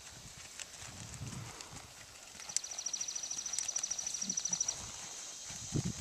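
Quarter Horse gelding's hooves falling on soft sand arena footing at a slow western pleasure gait, with dull low thuds. From about two and a half seconds in, a rapid high trill runs for about two seconds.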